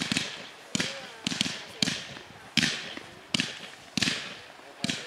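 200-shot single-ignition-barrage firework cake firing shot after shot, about eight sharp bangs in five seconds, each fading away before the next.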